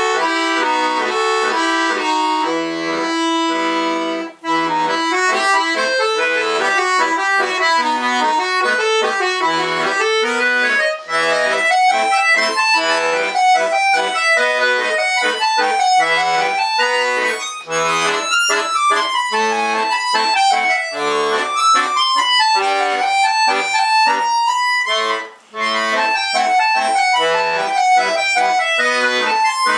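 Bayan (Russian chromatic button accordion) playing a solo folk piece. Quick melody runs climb and fall over left-hand bass notes, with two brief breaks in the sound, one about four seconds in and one near the end.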